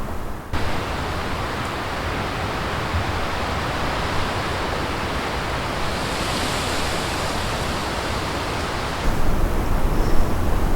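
Strong wind rushing through a hinoki cypress forest as a steady, even rushing noise. About nine seconds in it turns louder and gustier, with a low rumble of wind on the microphone.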